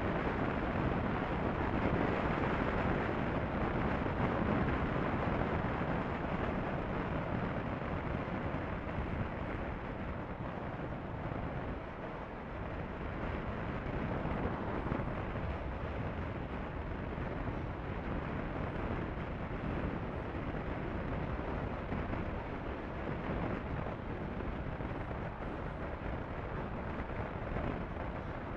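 Steady wind rush over the microphone of a Honda CB500F motorcycle cruising at road speed, with the engine and tyre noise blended underneath.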